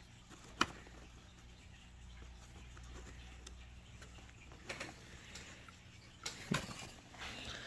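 Light handling noises from a toy tractor and its cardboard box: a sharp click about half a second in, then scattered taps and rustles near the end, over a low steady hum.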